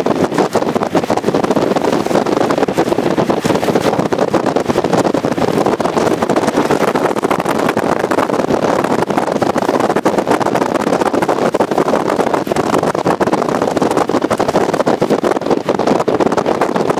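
Loud, steady rush of wind and rain against a moving car caught in a tornado's rear-flank downdraft, with a dense, unbroken patter of hits on the body.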